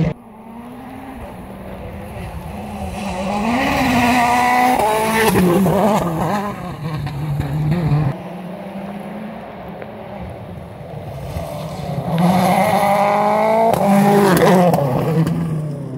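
Two rally cars come up and race past one after the other on a gravel stage, each engine climbing in pitch through the gears to a loud peak as it passes, the first about four seconds in and the second near the end, then its note dropping away.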